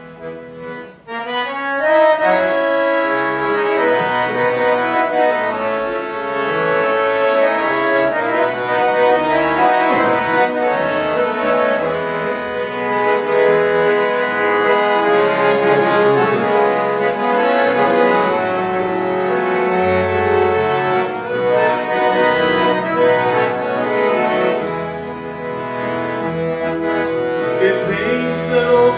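Piano accordion playing the instrumental opening of a hymn, starting about a second in with full chords.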